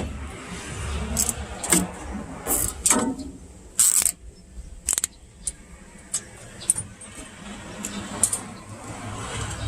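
Scattered metallic clicks and clinks with rustling: hand work on the wiring and terminals of a hard-start kit being connected to an air-conditioner compressor's capacitor, with the power off.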